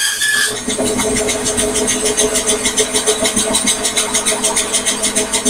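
Microlux variable-speed bandsaw running: a steady machine hum with a fast, even pulsing. A high whine from before stops about half a second in.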